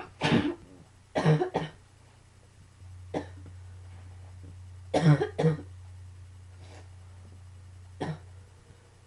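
A person in a coughing fit: harsh coughs in clusters, one right at the start, a quick run of two or three about a second in and another about five seconds in, with single softer coughs between.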